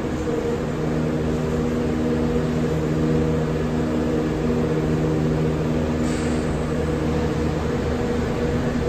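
New York City Subway train standing at the platform with doors closed, its onboard equipment humming steadily in several steady tones over a low rumble. A short high hiss comes about six seconds in.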